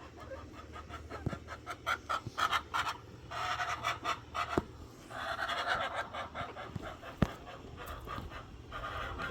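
Domestic chickens giving harsh, raspy squawks in long stretches, about three, five and nine seconds in. Before them comes a run of quick clicks and rustles from the birds moving.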